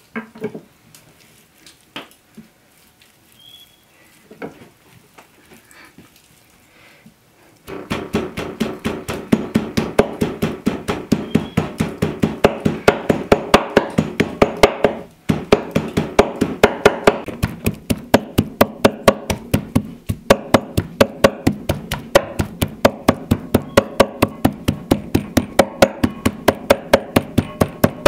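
Large kitchen knife chopping raw beef on a wooden cutting board, mincing it fine. A few scattered chops come first, then from about eight seconds in a fast, even run of chops, about four a second, with background music underneath.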